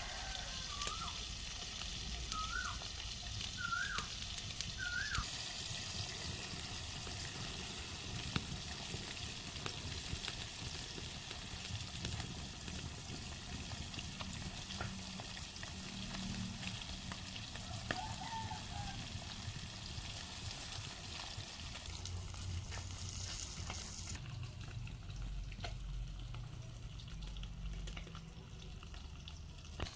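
Food frying in hot oil in a cooking pan, a steady sizzle that drops away about three-quarters of the way through.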